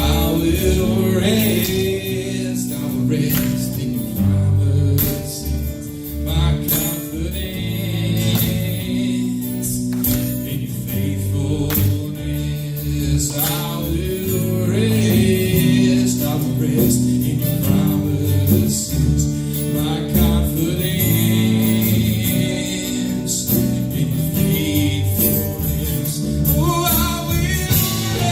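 Live church worship music: voices singing a gospel song over a band with bass and drums.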